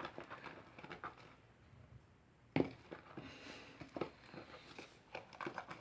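Sticky slime being stirred in a bowl: scattered small squelchy clicks and crackles, with a sharper knock about two and a half seconds in.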